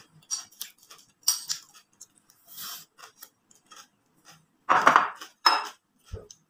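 Metal spoon clinking and scraping against a ceramic plate while eating yogurt with puffed rice, in short irregular clicks with a few louder knocks. Near the end the plate is set down on the table with a dull knock.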